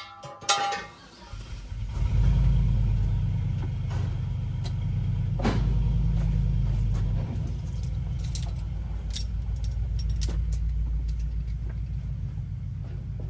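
A door shuts with a clunk, then about a second in the Jeep Gladiator's engine starts and settles into a steady low idle.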